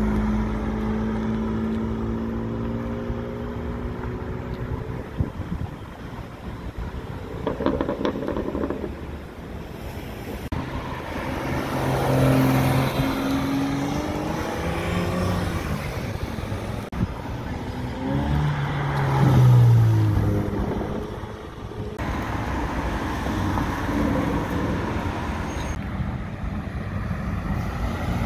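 A run of high-performance cars accelerating away one after another, each one loud with an engine note that climbs or falls in pitch as the car revs and passes. Among them is a BMW M4 with its twin-turbo straight-six. The sound breaks off several times where one pass gives way to the next.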